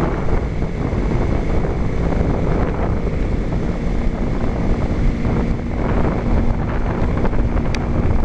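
Wind buffeting a helmet-mounted camera's microphone at highway speed, over the steady hum of a Kawasaki Ninja 250's parallel-twin engine. Near the end there is a single sharp click from the helmet's unfastened chin strap.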